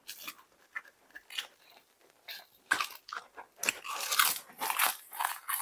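Close-up chewing of a mouthful of crisp roasted laver (gim) with rice: irregular crunchy crackles, sparse at first and coming thick and fast in the second half.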